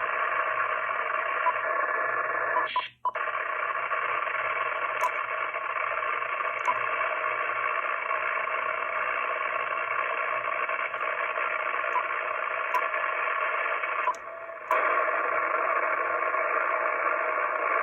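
Amateur radio receiver hiss and band static over the speaker, steady and cut off at about 3.5 kHz by the receiver's narrow audio bandwidth. It drops out for an instant about three seconds in and dips for about half a second near fourteen seconds.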